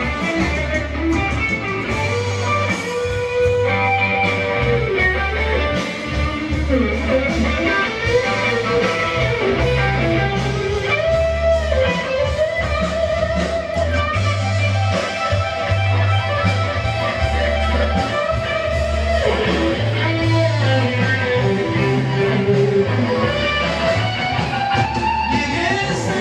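Amplified band music in an instrumental break between sung verses: an electric guitar plays a gliding lead melody over a steady bass line, with no singing.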